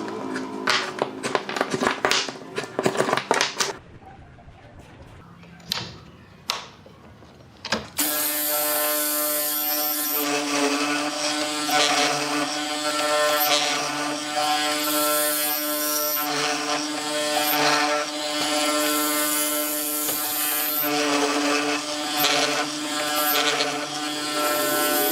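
Several seconds of sharp clicks and knocks, then about eight seconds in a small electric motor starts and runs with a steady buzzing whine.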